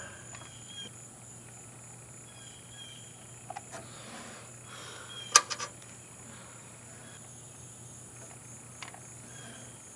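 Steady chirring of crickets or other insects, with a few short clicks and taps from parts being handled, the sharpest about five seconds in.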